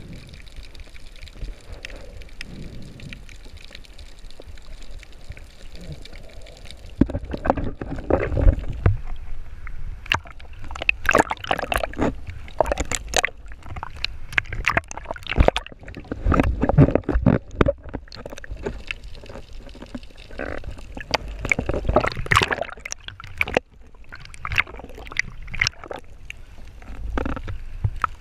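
Muffled underwater rumble for the first several seconds, then, from about seven seconds in, seawater sloshing and splashing irregularly against a camera housing bobbing at the surface.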